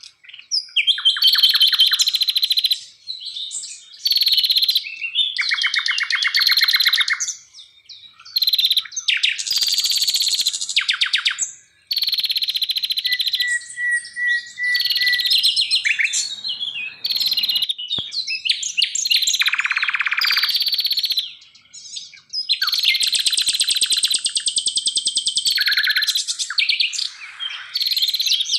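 Songbird song: loud, varied phrases of rapid trills, buzzy rattles and clear whistles, one after another with short pauses between them.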